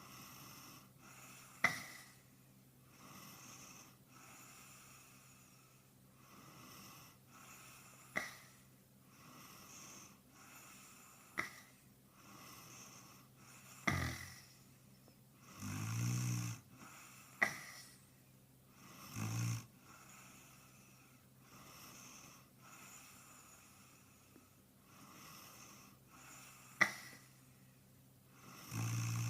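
A man snoring in his sleep, the recording sped up and pitched higher. Soft breaths come about every two seconds, with several sharp clicks between them. Louder snores come twice past the middle and again at the very end.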